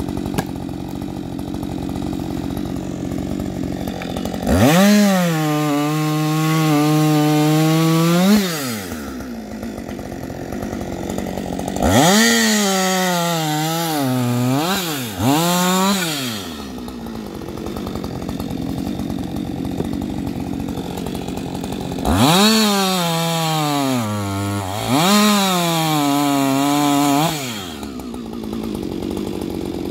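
Husqvarna 560 XP two-stroke chainsaw with a ripping chain, idling between three spells at high revs of about four to five seconds each, starting about five, twelve and twenty-two seconds in. In each spell the pitch rises sharply, settles a little lower while held, then falls back to idle. The middle and last spells dip briefly partway through.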